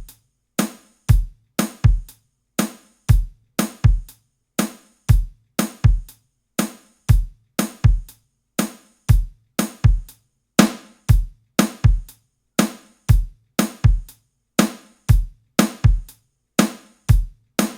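A looped groove of sampled acoustic drum kit: kick, snare and hi-hat hits, dry, with short silences between them in a steady beat. The snare is being compressed to bring out its crack.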